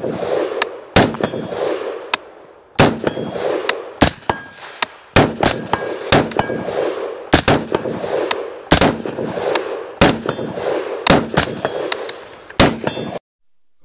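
Two AR-15-style rifles, one fitted with a suppressor, firing a fast, irregular string of shots, some in quick pairs, with a short metallic ringing after several of them. The shooting cuts off abruptly near the end.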